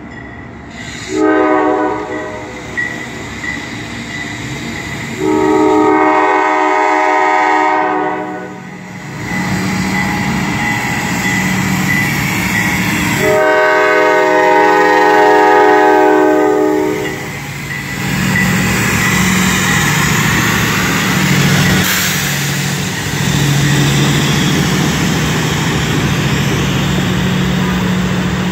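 Freight train's diesel locomotive horn sounding three blasts (a shorter one, then two long ones) on the approach to a grade crossing, while a crossing bell rings steadily. After the horn, the locomotives' diesel engines rumble past, followed by the rolling noise of freight cars.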